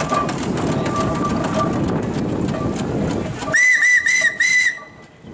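A steady rumbling noise, then about three and a half seconds in, four short toots of a steam traction engine's whistle, each rising and falling slightly in pitch.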